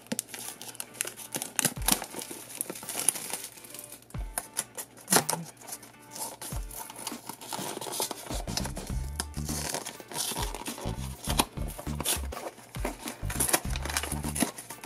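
Cellophane wrapper crinkling and tearing as it is peeled off a small cardboard blind box, with the box rustling as it is opened. Background music with a bass line comes in about halfway through.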